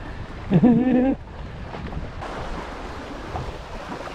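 Choppy lake water sloshing and lapping around the wader, with wind noise on the microphone. About half a second in, a person gives a short voiced exclamation lasting under a second.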